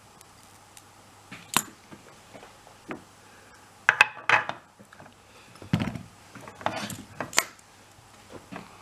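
Small hand tools and the parts of a screw-on 3.5mm headphone jack being handled and set down, making irregular light clicks and clatters. They come in clusters, the loudest about four seconds in and more around six to seven and a half seconds.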